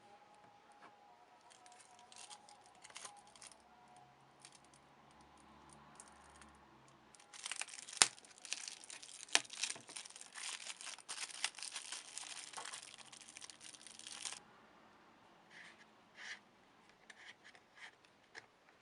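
Crinkling and rustling of something being handled, with a few soft taps at first and then a dense run of crackling for about seven seconds in the middle, with one sharper tick near its start. It ends in a few scattered ticks.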